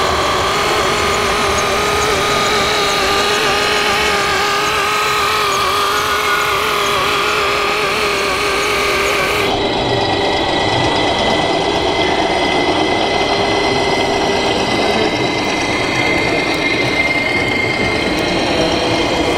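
1:14 scale RC model trucks driving, giving a steady mechanical hum with held tones; about nine and a half seconds in the sound changes abruptly to a steady, higher whine.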